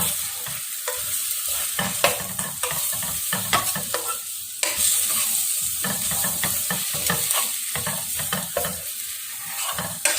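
Onion masala with freshly added spice powders frying in a pan with a steady sizzle, while a spoon stirs it, with frequent short scrapes and clinks against the pan.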